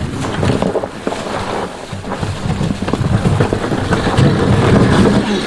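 Wind buffeting the microphone outdoors: an irregular, gusty low rumble with a noisy hiss above it.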